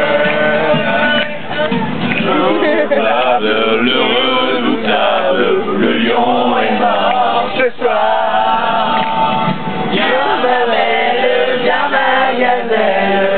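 A group of people singing together without instruments, several voices at once, running on without a break.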